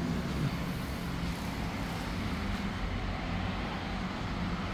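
Steady rumble of road traffic from a nearby highway, with a faint engine hum under an even wash of noise.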